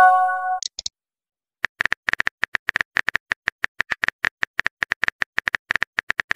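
A short chat-app notification chime of a few steady tones as a message arrives. After a brief pause, a fast run of phone-keyboard typing clicks follows, about eight a second.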